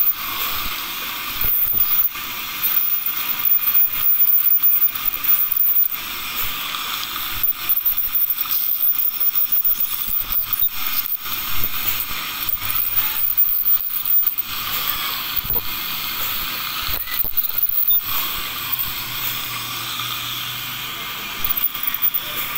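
Ultrasonic dental scaler running with its water spray, the vibrating tip chattering and clicking against the lower front teeth as it breaks off tartar, while a saliva ejector sucks up water with a steady hiss.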